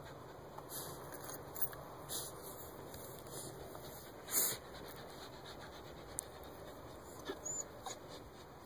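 Miniature schnauzer digging into an animal burrow, its paws scraping and scratching at the dirt in irregular bursts, with one louder scuffle about four and a half seconds in.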